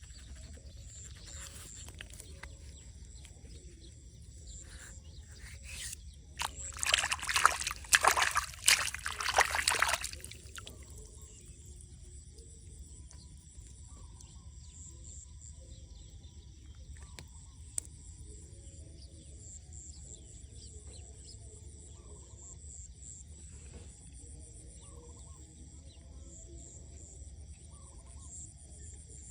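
Countryside ambience with insects chirping steadily in a high, rapid pulsing. About six and a half seconds in, a loud rough burst of noise lasts around four seconds.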